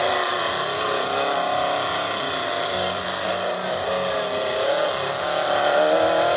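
Off-road race buggy's engine running hard at high revs, its pitch rising and falling as the driver works the throttle up the dirt track.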